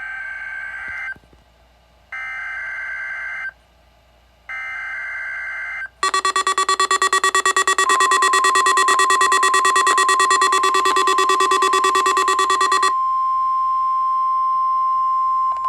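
Emergency Alert System weekly test on NOAA Weather Radio receivers. First come three short screechy digital SAME header bursts, about a second apart. Then a weather radio's own alarm beeps rapidly and loudly, and about two seconds after the beeping starts the steady single-pitch 1050 Hz warning alarm tone joins in underneath. The beeping stops about three seconds before the end, leaving the tone sounding alone.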